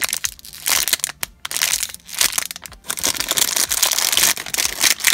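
Clear plastic packaging bag crinkling and crackling as a foam squishy is worked out of it by hand, in several bursts with short breaks.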